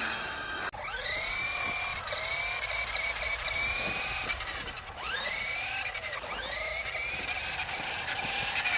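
Electric motor of an RC toy car whining, revving up in rising glides several times while the car is stuck.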